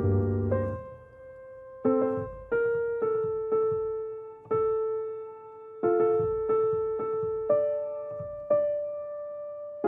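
Slow, gentle solo piano music: single notes struck every half second to a second, each left to ring and fade, over a soft chord that dies away near the start.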